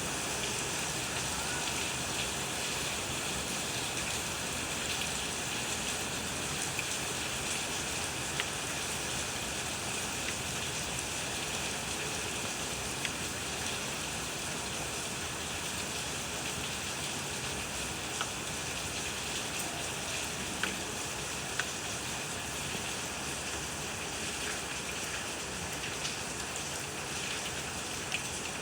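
Steady rainfall: an even hiss of rain, with an occasional louder drop ticking sharply on a surface.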